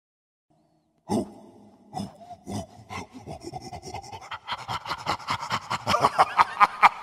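Stage soundtrack effect: after about a second of silence, a loud hit, then a few scattered strokes that turn into a rhythmic pulse, speeding up and growing louder toward the end.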